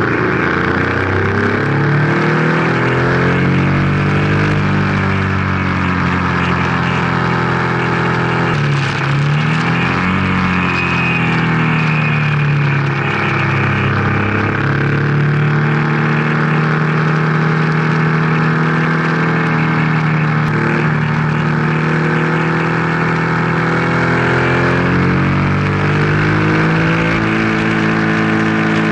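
Open-cockpit race car's engine heard from the onboard camera at racing speed. The revs repeatedly climb and drop as it shifts gears through the corners.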